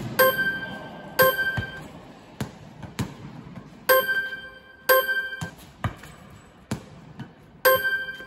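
Tennis ball rally against a rebound net: sharp racket strikes, several with a brief ringing ping, coming in pairs about a second apart, with softer ball bounces on the court floor between them.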